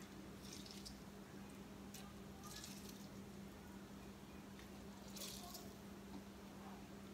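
Half a lime squeezed by hand over a bowl: faint soft squishes of the fruit and juice dripping, a few times, over quiet room tone.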